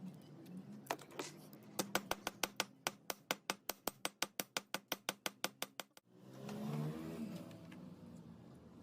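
A rapid, even series of sharp clicks, about six a second, for about four seconds, stopping abruptly; then a brief softer rasping sound.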